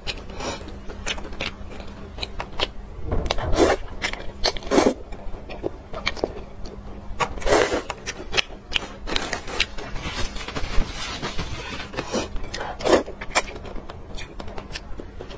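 Close-miked mukbang eating sounds: wet chewing and slurping of glass noodles in a thick braised-pork sauce, with small clicks of chopsticks in the bowl and several louder wet mouthfuls.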